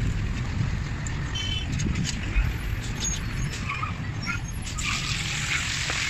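Fish pieces sizzling in hot cooking oil in a wok over a wood fire; the sizzle swells into a dense hiss about five seconds in as fresh pieces go into the oil. A steady low rumble runs underneath.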